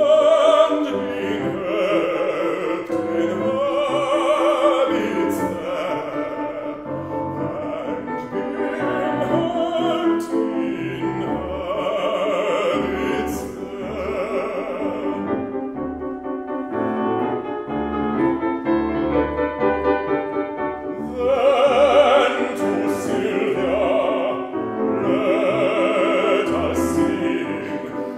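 Baritone singing a song in classical operatic style with piano accompaniment. About two-thirds of the way through, the voice drops out for a few seconds while the piano plays on, then returns.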